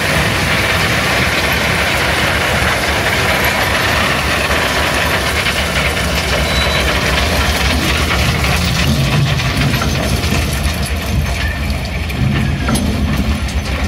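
Ballast train's hopper wagons rolling slowly past while crushed stone pours out of their open bottom chutes onto the track bed: a steady rattle and rush of falling stone over the rumble of wheels on rail. This is ballast being unloaded on the move.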